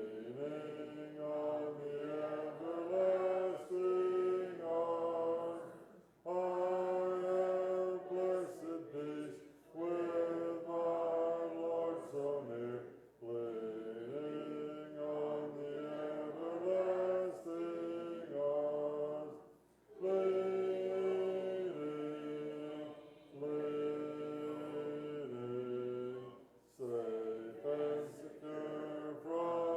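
Church congregation singing a hymn in unison a cappella, without instruments, in sustained phrases broken by short pauses for breath.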